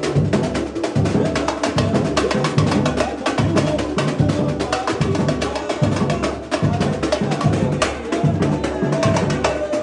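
Samba band playing: busy, steady percussion with quick sharp hits, many per second, over a pulsing bass line.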